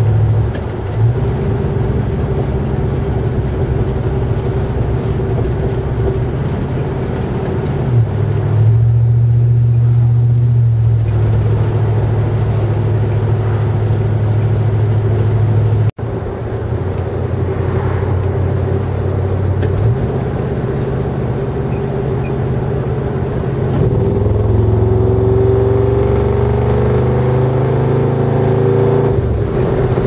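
1978 GMC Suburban's stock 350 V8 with dual glasspack mufflers running while the truck is driven, a steady low exhaust drone. The drone swells for a few seconds about a third of the way in and cuts out for an instant about halfway, and the pitch climbs as the engine revs up near the end.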